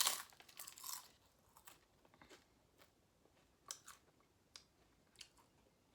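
Someone chewing a crispy grilled seaweed roll: a loud crunch at the start and another about a second in, then softer scattered crunches.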